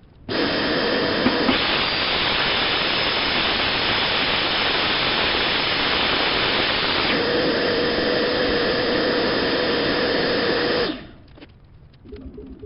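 A power tool running steadily for about ten seconds before winding down, with a hissier, higher-pitched stretch in the middle.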